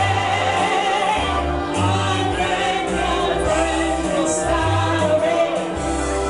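Live singing into microphones over amplified backing music with a bass line.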